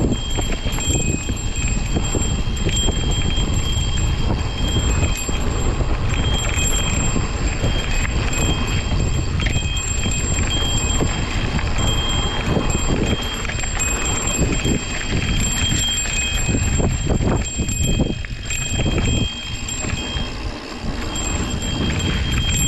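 Mountain bike rolling fast down a dirt singletrack: heavy wind rumble on the camera microphone over rough tyre and trail noise, with a thin high ringing tone running throughout. The noise dips briefly near the end.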